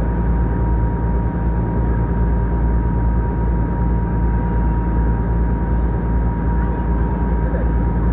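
A river passenger ferry's engine running steadily, a loud unbroken drone with a constant hum.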